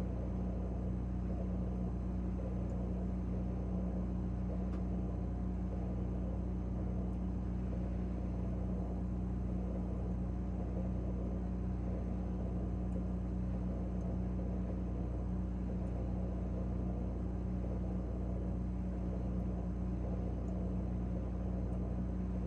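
Refrigerator running with a steady, unchanging low hum, heard from inside the closed fridge.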